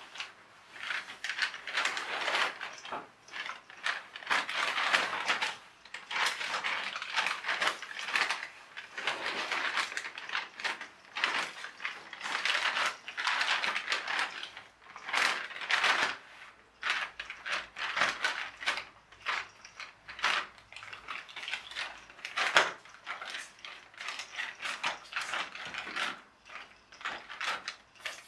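Cat in the Bag toy running: its small electric motor and plastic gearbox whirring and clattering in rapid, uneven bursts as the bag jerks about.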